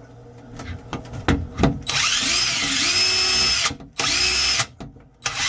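Power drill with a large bit pressed against a cabinet wall: a couple of knocks, then the drill motor spins up and runs for about a second and a half, a short burst follows, and it starts again near the end. The bit is not biting well without a pilot hole.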